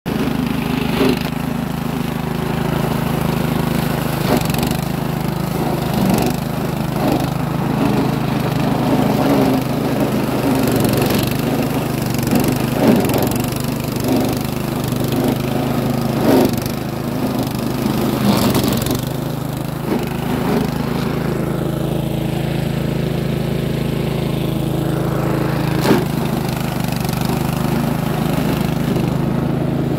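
Eurosystem walk-behind grass mulcher running steadily as it cuts tall grass, its small engine under load, with scattered sharp clicks.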